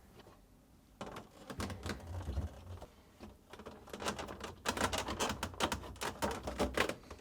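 Plastic refrigerator top panel clicking and rattling as its rear retaining tabs are worked into the retainers on the fridge compartment: a run of quick taps and clicks that grows busier about halfway through.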